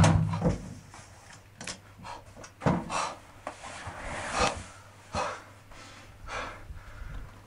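Music stops right at the start, then scattered soft rubbing and knocking against a wooden door and a few heavy breaths as a man slumps to the floor against it.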